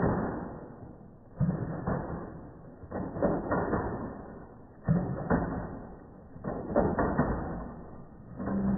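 Slowed-down, deep-pitched room audio: long drawn-out swells of sound, with a sudden start about every three and a half seconds.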